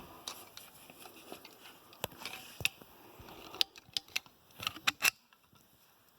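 Irregular sharp clicks and light knocks as the hubcap is worked off a Simplicity 7013 lawn tractor's front wheel, coming quickest about four to five seconds in and stopping shortly after.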